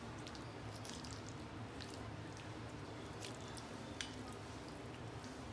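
Chicken cubes in a yoghurt and spice marinade being stirred with a plastic spoon in a glass bowl: faint wet squelching with scattered light clicks of the spoon against the glass, one sharper click about four seconds in, over a low steady hum.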